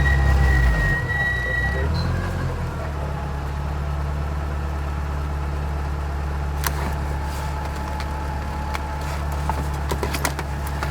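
Rally car engine dropping from higher revs to a steady low run about a second in. A thin high whine stops just before two seconds in, and a few sharp clicks come in the second half.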